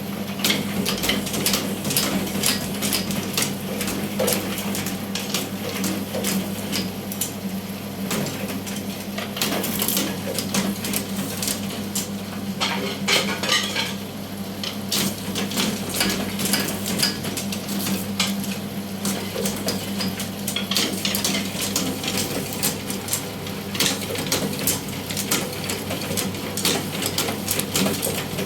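A 3-in-1 bamboo satay-skewer machine running: a steady motor hum under a constant, irregular rattle and clicking of bamboo strips and sticks passing through it.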